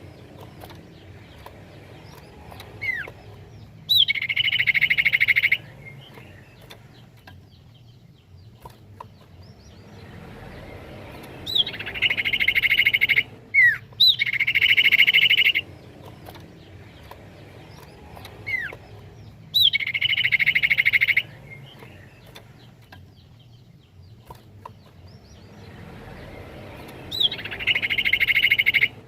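Common iora (cipoh) calling: five trilled phrases of about a second and a half each, every one led by a short falling whistle. Faint chirps come in the gaps between them.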